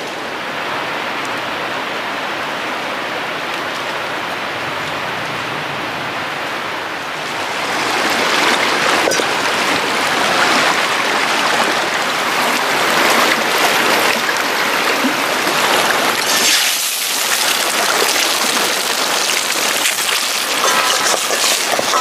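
Mountain stream running steadily over rocks, a continuous rushing. About eight seconds in it grows louder and brighter.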